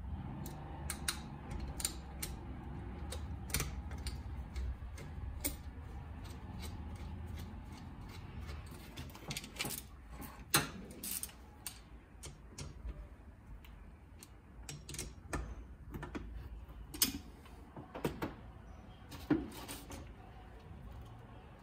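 Irregular metallic clicks and taps of hand tools and small engine parts being handled on a metal workbench, with a few sharper knocks, over a low steady hum.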